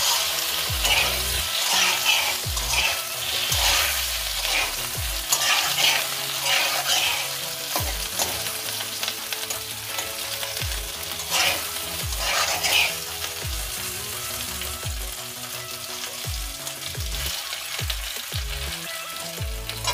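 Potato wedges sizzling in hot mustard oil in a metal kadai, with a flat metal spatula scraping and turning them against the pan in spells, busiest in the first half.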